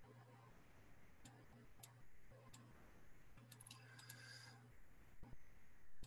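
Near silence with a few faint computer mouse clicks, one by one and then a quick cluster about three and a half seconds in, over a low electrical hum that comes and goes.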